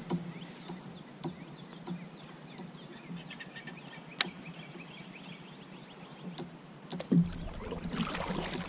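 Outdoor ambience while fishing: scattered small clicks and knocks with faint bird chirps, then a rumbling wind-like noise rising about seven seconds in.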